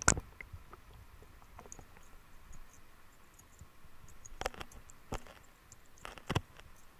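Sharp clicks and knocks picked up by an underwater camera: the loudest right at the start, then several more between about four and a half and six and a half seconds, over faint scattered high ticking.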